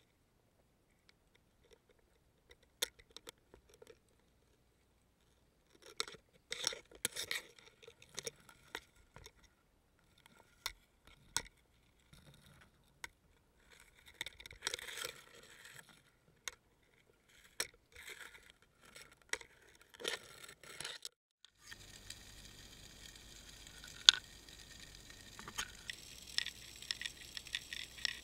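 Underwater fishing camera housing scraping and knocking against weedy reef rock: scattered clicks and rustling scrapes in clusters. About three quarters of the way through, this gives way to a steady underwater hiss with sharp clicks.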